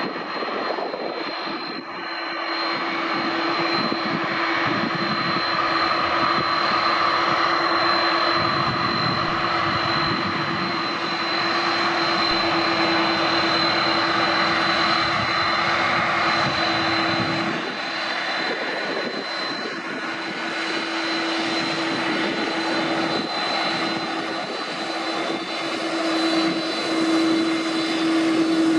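Jet airliner engines running, a steady rush with a constant high-pitched whine and a lower hum. A deeper rumble fades out a bit past halfway, and the sound builds again near the end.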